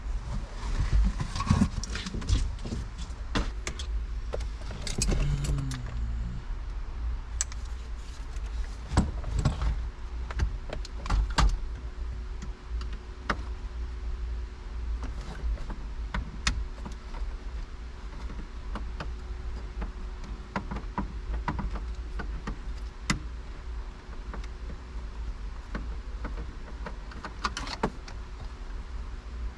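Scattered clicks, knocks and rattles of hand tools against plastic interior trim and fittings as a car interior is taken apart, with a brief falling whine about five seconds in.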